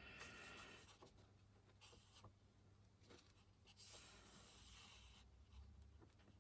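Faint rustling of a paper instruction booklet being handled and its pages turned, in a few short soft swishes with a longer one about four seconds in.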